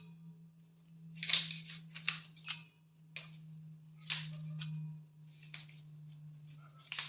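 Fresh eucalyptus leaves being torn apart by hand: a string of short, crisp tearing rustles, one every second or so.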